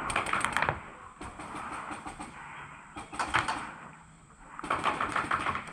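Airsoft gunfire: several bursts of rapid snapping shots, about ten a second, with short pauses between bursts.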